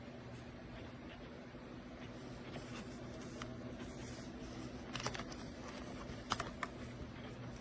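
A package being handled: light rustling and scraping, with a few sharp clicks and taps about five and six seconds in, over a steady low hum.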